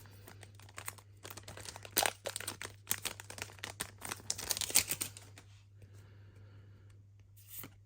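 Foil booster-pack wrapper crinkling and crackling as it is handled, busy for about five seconds and then dying down to an occasional rustle.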